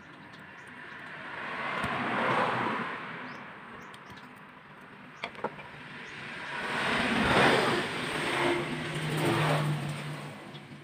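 Road vehicles passing by, two swells of engine and tyre noise that rise and fade, the second longer, over a low steady hum, with a couple of sharp clicks between them.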